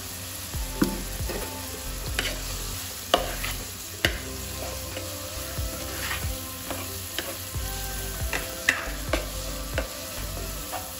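Chopped vegetables (onion, carrot, capsicum) sizzling in a frying pan while being stirred, with irregular sharp knocks and scrapes of the stirring utensil against the pan.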